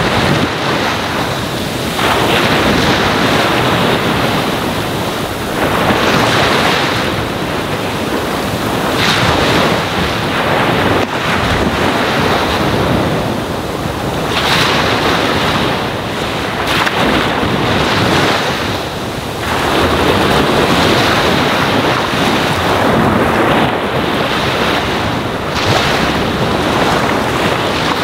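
Ocean waves washing onto a sandy shore: a continuous rush of surf that swells every few seconds.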